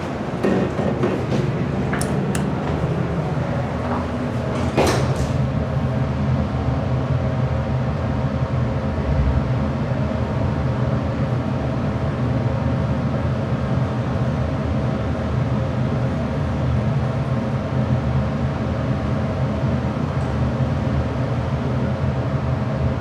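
ThyssenKrupp high-rise traction elevator heard from inside the car. A few clicks and a short clatter in the first five seconds as the doors close, then the car rises at speed with a steady hum.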